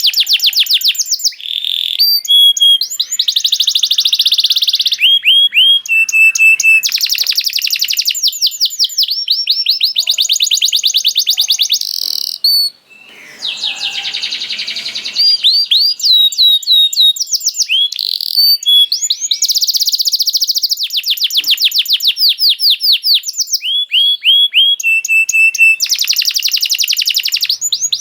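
Domestic canary singing: fast high trills and rolls of rapidly repeated notes, one run giving way to the next every second or two, with a short break a little before halfway.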